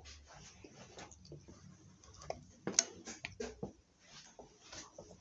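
Faint scattered clicks and light knocks of small objects being handled, with a cluster of sharper clicks about two and a half to three and a half seconds in.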